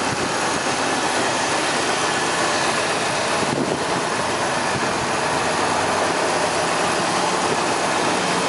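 1972 Oldsmobile Cutlass 442's V8 engine idling steadily with the hood open.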